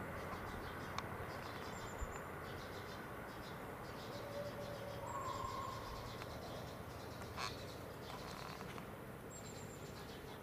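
Steady outdoor background noise with three short, high, thin chirps a few seconds apart and a single faint click after the middle.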